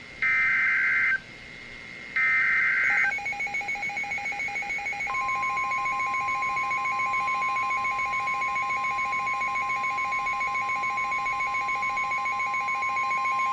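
Emergency Alert System SAME header on NOAA Weather Radio: two harsh buzzing data bursts of about a second each, the last of the three repeats that open an alert. Then a rapid pulsing beep starts, and about two seconds later the steady 1050 Hz weather-radio attention tone comes in and holds, announcing a warning.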